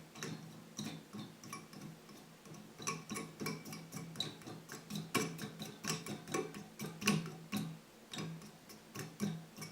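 Irregular light clicks and taps, several a second, from the small plastic CPU cooler fan being handled, with a faint low hum coming and going.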